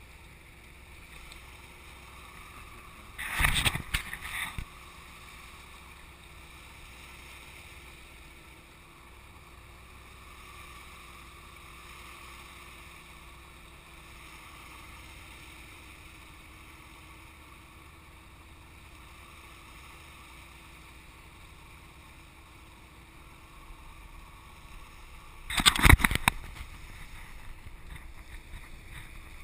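Small inflatable boat moving over calm sea: a low steady hum with faint water wash. Two loud rough bursts of noise, each about a second long, break in about three seconds in and again near the end.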